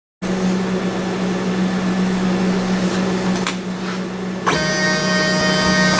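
CNC tangential-knife cutting machine running with a steady hum and hiss; about four and a half seconds in, a higher whine of several steady tones joins it.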